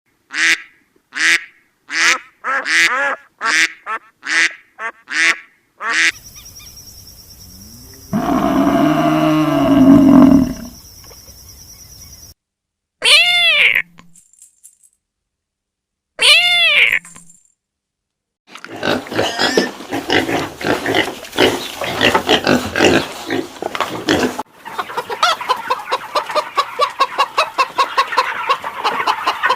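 A sequence of different animal calls cut one after another: a run of about nine short repeated calls, a long low call over a steady hiss, two single calls that rise and fall in pitch, then fast chattering and rapid pulsing calls.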